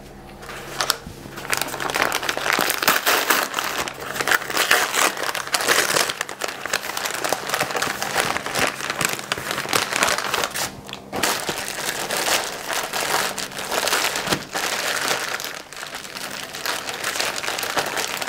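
Brown paper mailer being torn open and crumpled, then clear plastic and bubble-wrap packaging crinkling as it is handled, with a short pause a little past the middle.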